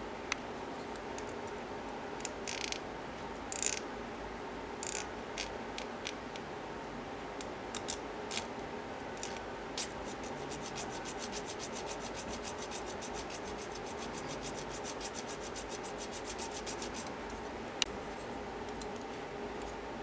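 Hobby knife scratching and scoring a small tape-wrapped metal sheet part: scattered short scratches, then a fast, even run of fine scratching strokes for several seconds from about halfway, and a single sharp click near the end, over a steady background hum.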